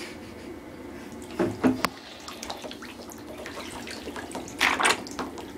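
Bathwater sloshing and splashing as a small toy boat is pushed under. Two louder splashes come about a second and a half in and near the end.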